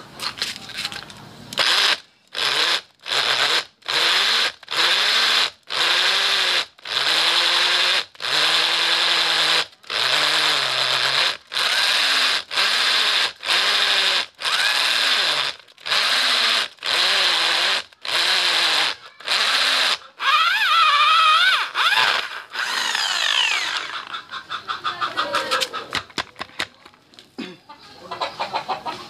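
Corded drill with an SDS concrete core bit cutting into a concrete block, run in about fifteen short bursts of roughly a second each with brief pauses; the bit is packing with cement and going hard. Near the end the motor gives a wavering whine, followed by light clicks and rattles as the bit is handled.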